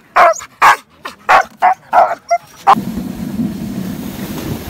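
A harnessed husky sled dog barking, about seven short, loud barks in quick succession. Then, from about 2.7 s in, the steady rushing noise of a dog sled moving over a snowy trail, with wind on the microphone.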